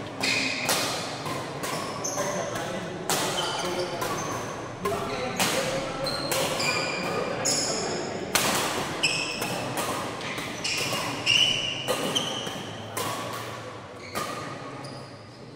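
A fast badminton rally: sharp racket strikes on the shuttlecock and footfalls about every half second, with sneakers squeaking briefly on the court mat. The hits die away near the end as the rally stops.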